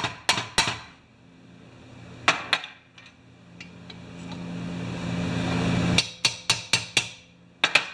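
Brass-headed hammer tapping on a Homelite C51 chainsaw's engine housing to drive its parts apart without tearing the gasket. The sharp taps come in groups: three at the start, two more about two seconds in, a quick run of five around six seconds, and two near the end.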